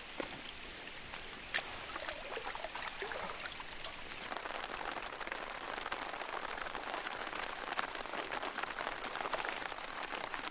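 Rain pattering on a tarp shelter overhead, a dense crackle of drops that grows heavier from about four seconds in, with a few sharper single drops standing out.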